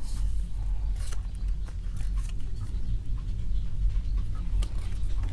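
Paper pieces being handled and shuffled: light rustling, scratching and small clicks, over a steady low rumble.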